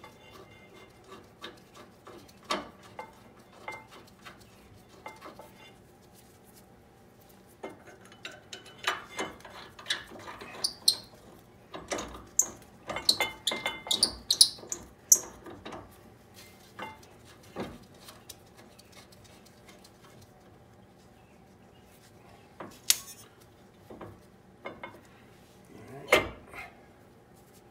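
Metal clinks and knocks of brake parts being handled: a caliper bracket and brake rotor being fitted onto a car's rear axle hub. About a third of the way in comes a busy run of sharper, higher clinks, then a quieter stretch and a few more knocks near the end.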